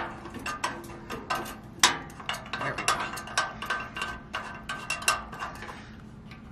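Small metal clicks and clinks as a bolt is threaded by hand into the black metal frame of a Blackstone griddle, irregular ticks throughout with a sharper click about two seconds in.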